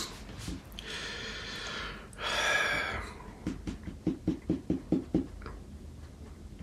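A person sipping a hot drink: two slurping sips, the second louder, then a quick run of about eight short, low sounds, about four a second.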